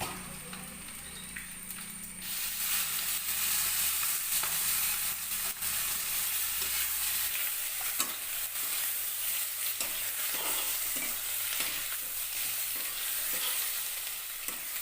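Potatoes and eggs frying in oil in a pan, sizzling. The sizzle jumps up sharply about two seconds in as ground cumin paste goes into the hot oil, and from the middle on a spatula stirs with short scraping strokes.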